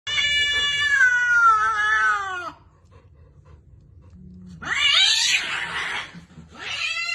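A cat yowling three times: a long drawn-out call that slides down in pitch, a rougher, raspier call, then another call falling in pitch.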